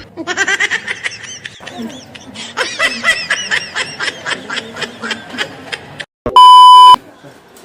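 High-pitched giggling laughter for about six seconds, then a loud steady electronic beep lasting about half a second.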